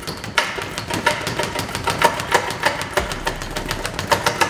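Speed bag being punched in a fast rhythm, rebounding off its round platform: a rapid, slightly uneven run of sharp thuds, several a second.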